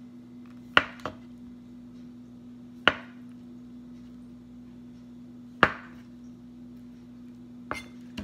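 A kitchen knife slicing through a block of firm tofu and knocking on a wooden cutting board at the end of each cut: four sharp knocks a couple of seconds apart, over a steady low hum.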